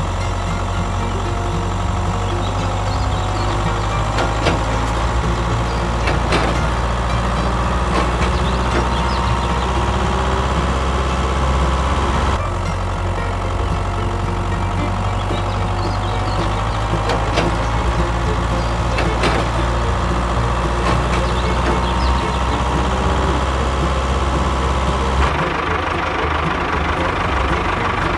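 A motor running steadily with a low hum and a faint wavering whine, plus scattered light clicks; the sound changes abruptly twice, about 12 and 25 seconds in.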